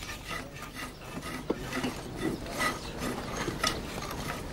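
Hand tool scraping dry excavation soil in short, repeated strokes, about two a second.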